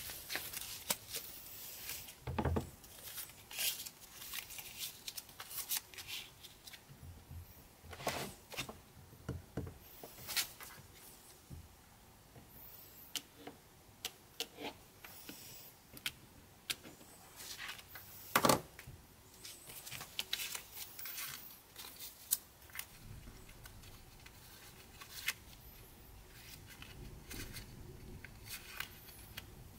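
Playing cards being handled and tucked under a wooden board resting on an MDF jig: scattered light taps, slaps and rustles, with a few louder knocks, the loudest about 18 seconds in.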